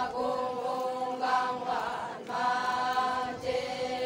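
A group of Konyak Naga women chanting in unison. Their held notes come in phrases of about a second, with short breaks between them.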